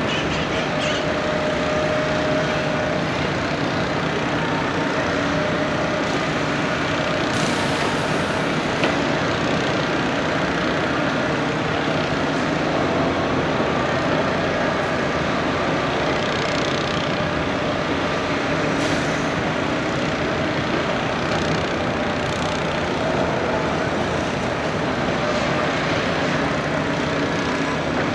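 Heavy excavator's diesel engine running steadily under load while it drills pile holes in the street, a continuous loud mechanical drone.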